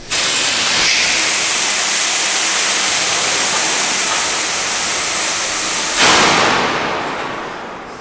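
A loud, steady rush of compressed air released through the starting-air system of the B&W 2000 diesel engine during its cold start. It begins abruptly and holds for about six seconds; then a second, louder blast comes and fades away over the last two seconds.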